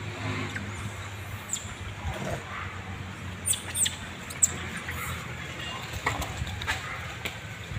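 A few short, high animal squeaks scattered through, a cluster around the middle and more later on, over a steady low hum.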